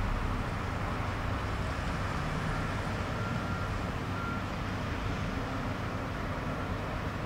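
Cargo ship's diesel engine running with a steady low rumble.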